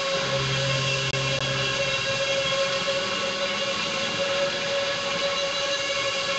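Drone guitar music: layered, sustained guitar tones held steady without any beat, with a low note that sounds from just after the start until about two and a half seconds in.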